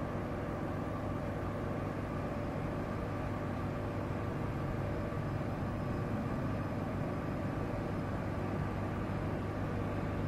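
Beechcraft Baron G58's twin six-cylinder piston engines and propellers running at low power while taxiing: a steady drone with a deep hum and a few steady overtones.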